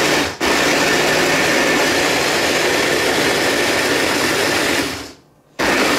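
ELECHOMES 500-watt immersion blender's motor spinning the chopper bowl's S-blade, pureeing strawberries. It runs steadily, cuts out for a moment just after the start, stops about five seconds in and starts again half a second later.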